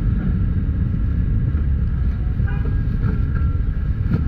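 Steady low rumble, with faint voices talking in the background about halfway through.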